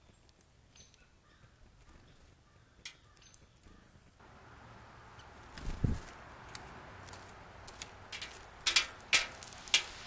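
A blue jay at a wooden platform feeder: a low thump about six seconds in as it lands, then a few sharp taps near the end as it pecks at the seed on the tray.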